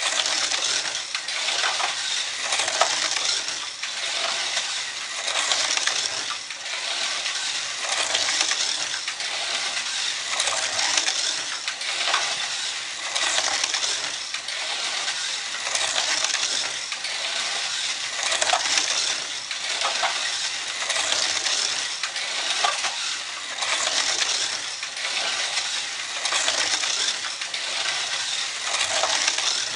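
A slot car running laps around the track: the continuous rattle of the car's motor, guide and tyres in the slot, swelling each time it comes around past the end curve, about every two and a half seconds.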